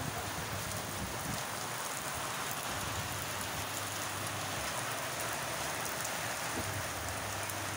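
Heavy rain falling steadily on a leafy crop field and wet soil, a dense, even hiss.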